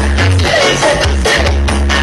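Loud music through a sound horeg system, with heavy, booming bass notes under a gliding melody line.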